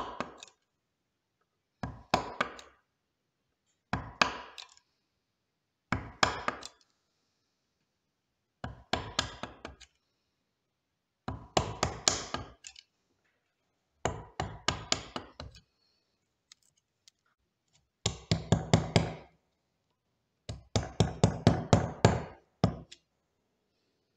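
A wood chisel struck in quick series of knocks, chopping and splitting waste out of a joint recess in a softwood board. Short bursts of rapid knocks come every two seconds or so, and the last two bursts run longer.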